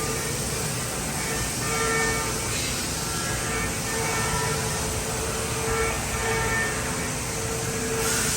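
OKK MCV 660 vertical machining center running under power: a steady mechanical hum with a whining tone that keeps fading in and out, and a brighter hiss coming in near the end.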